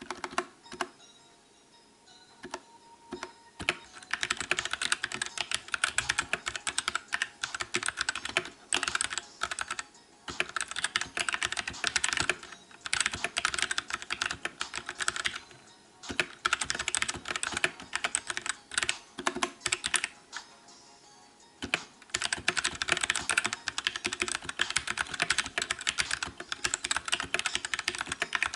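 Fast typing on a Royal Kludge RK71 mechanical keyboard: a few scattered key presses, then from about four seconds in a dense run of keystroke clacks. The run breaks off briefly a few times, with a longer pause about two-thirds of the way through.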